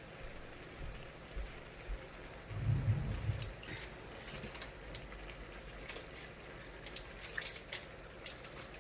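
Lemon squeezed by hand over a pot of adobo, its juice dripping in as scattered faint drips and soft squishes, with a dull low thump about three seconds in.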